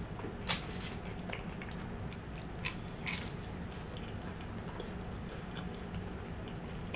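Quiet close-up chewing and mouth sounds of a person eating flaky, buttery chicken pot pie crust, with a few soft clicks and crackles.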